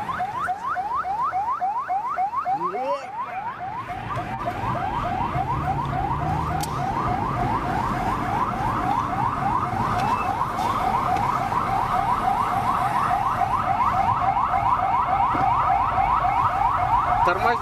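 Electronic siren sounding in quick rising sweeps, about four or five a second, unbroken and growing steadily louder, over the low rumble of a vehicle.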